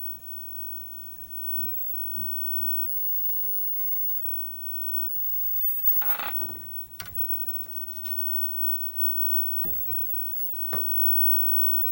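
Workbench handling sounds: a few scattered light knocks and clicks, and one louder brief scraping rub about six seconds in, over a steady electrical hum.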